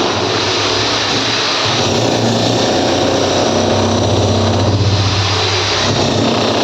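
A motor running steadily with a low hum that grows a little stronger in the middle.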